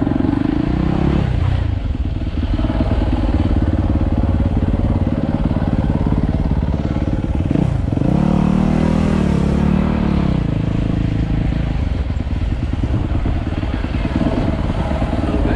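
Motorcycle engine running loud at low speed. Its pitch drops about a second in, then it revs up about eight seconds in and holds for roughly two seconds before easing off.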